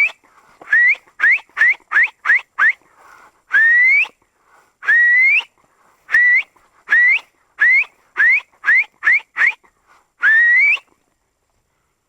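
A hunter whistling to recall a hound: about eighteen loud notes, each rising in pitch. Some are held for half a second and others come in quick runs of four or five.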